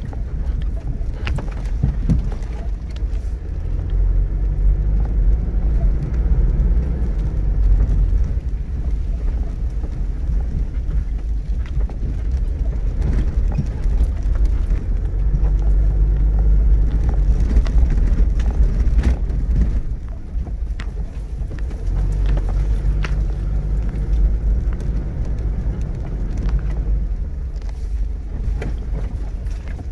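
Mitsubishi Pajero V80 driving slowly over a rough dirt track, heard from inside the cabin: a steady low rumble from the engine and tyres, with scattered knocks and rattles as the body and suspension take the bumps.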